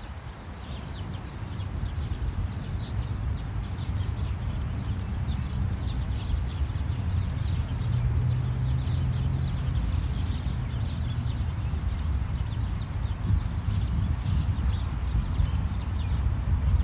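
Many small birds chirping in quick, high, short notes throughout, over a steady low rumble.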